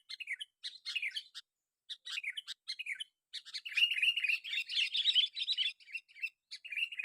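Sooty-headed bulbul (kutilang) song used as a lure call: a run of short, bubbly chirped phrases with brief gaps, coming thick and loudest in the middle.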